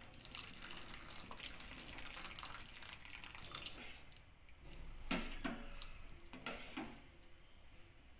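Milk poured into a steel pot of moong dal and sago payasam, a faint splashing pour over the first few seconds. Then a ladle stirs the mix, knocking four times against the pot.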